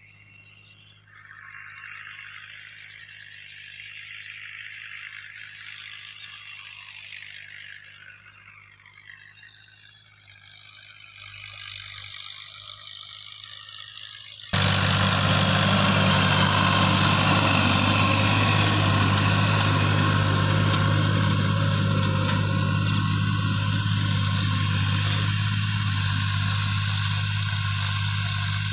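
A farm tractor's diesel engine running steadily under load as it works dry soil, cutting in suddenly about halfway in and loudest from then on. Before it, only quieter outdoor sound with faint, wavering high tones.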